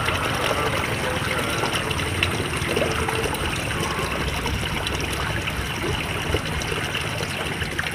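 Water trickling steadily in a small irrigation ditch.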